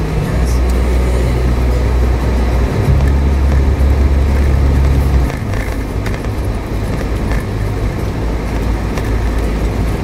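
Suzuki Jimny driving along a dirt track, with engine and tyre noise. A low drone is heavier for the first five seconds or so, then eases.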